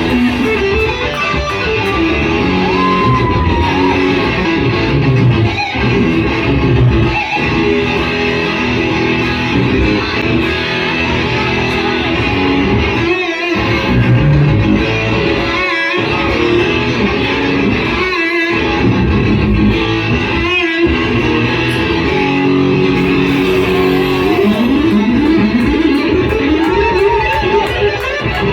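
Electric guitar played solo through an amplifier: a jam of picked and strummed lines with string bends and slides. The playing stops for brief moments several times.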